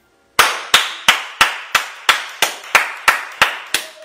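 One person clapping hands in a steady rhythm, about three sharp claps a second, starting a moment in.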